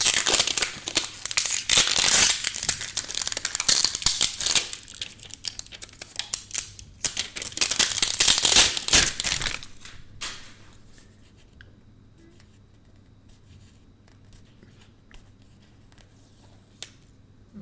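Plastic and paper packaging being crinkled and torn while a new smartphone is unwrapped, for about the first ten seconds; then it falls quiet, with a few light handling clicks.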